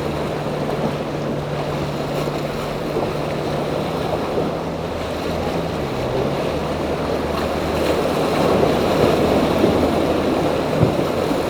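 Boat engines running in a steady drone that steps down in pitch about six seconds in, over the wash of surf and wind on the microphone.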